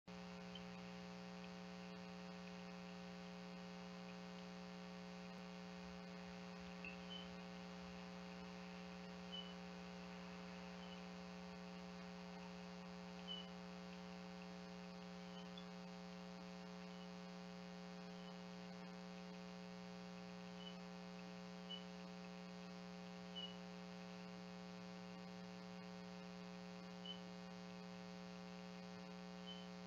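Steady electrical hum from the outdoor camera's audio, with faint, very short high chirps every one to three seconds.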